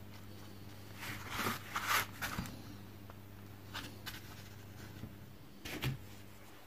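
Fingers handling a clear plastic lid and pressing putty-mounted eye blanks onto it: soft rustles and light taps, a cluster about one to two seconds in and a brief pair near the end, over a low steady hum.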